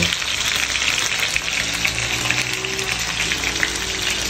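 Chicken drumsticks frying in hot oil in a frying pan, a steady sizzle dotted with small crackling pops.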